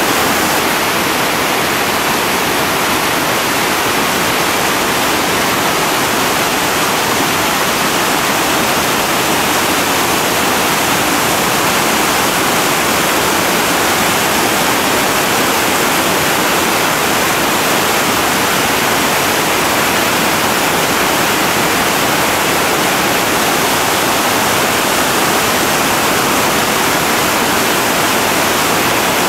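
Loud, steady roar of a big whitewater rapid, heavy river water crashing through a hole and breaking waves over boulders.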